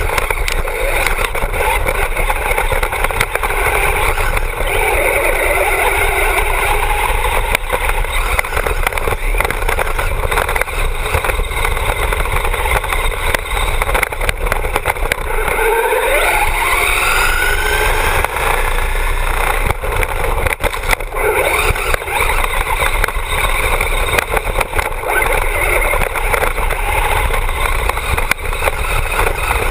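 Traxxas Bandit RC buggy with a brushless motor driving over dirt, heard from a camera mounted on the car: steady motor and drivetrain whine mixed with tyre and ground noise, the whine rising in pitch as it speeds up about sixteen seconds in.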